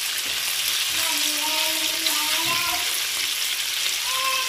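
Small anchovies frying in hot coconut oil in a nonstick pan: a steady sizzle, with a wooden spatula stirring the fish through the oil.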